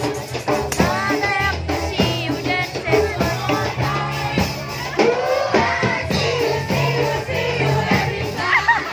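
Live ska band playing, with a singer, drums and electric bass keeping a steady beat.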